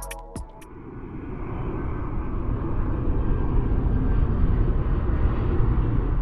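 Jet airliner engine noise, a low steady rush that grows louder over the first few seconds and then holds.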